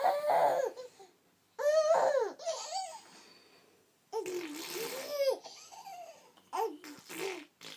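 A baby laughing and squealing in about six short high-pitched bursts, one longer and breathier than the rest a little past four seconds in.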